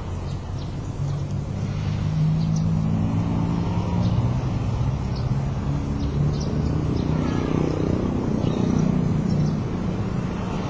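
A motor vehicle's engine running, with a steady low hum that grows louder about two seconds in and eases near the end. Faint short bird chirps sound above it.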